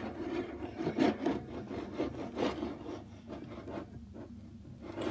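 Fingers stirring a sticky shaving-foam slime mixture in a bowl: irregular rubbing and squelching strokes, busier for the first few seconds, then fainter.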